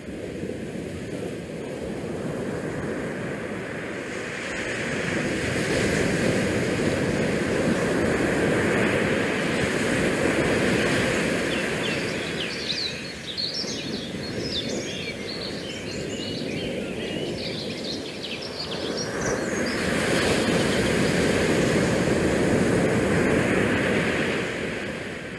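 Outdoor rushing noise of wind on the microphone and bay water against the shoreline rocks, swelling and easing twice. About halfway through there is a flurry of high chirping.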